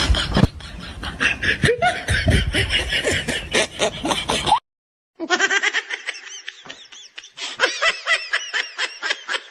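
Laughter in rapid repeated bursts, which drops out abruptly for about half a second halfway through and then starts again.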